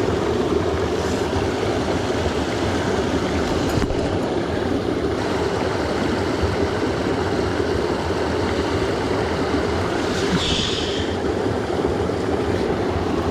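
Mountain stream rushing steadily over rocks, close to the microphone, with a brief higher hiss about ten seconds in.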